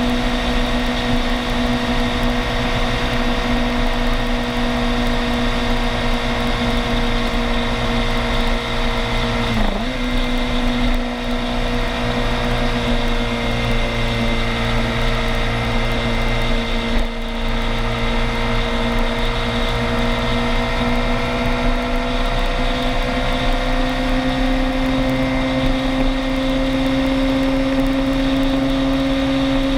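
Motorbike engine running at a steady cruising speed, heard from a mounted camera. About ten seconds in the engine pitch dips sharply and comes straight back, as on a quick throttle lift or gear change, and in the last third the pitch slowly rises as it speeds up.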